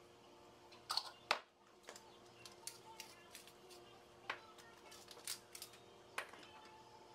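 Scattered light clicks and knocks of seasoning containers being handled over fish fillets, with two sharp knocks about a second in. A wooden pepper mill is twisted over the fish in the second half, giving short gritty clicks, over a faint steady hum.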